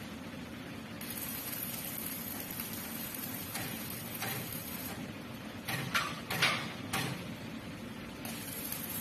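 Electric arc welding on a steel frame: a steady crackling sizzle that breaks off for a couple of seconds after about five seconds, while a few sharp metal clanks sound, then starts again near the end.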